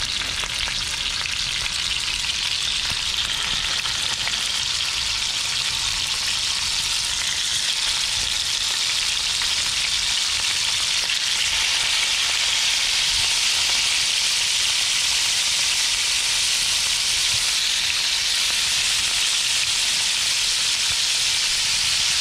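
Mackerel steaks frying in hot coconut oil in a pan: a steady sizzle that grows a little louder over the first several seconds, then holds.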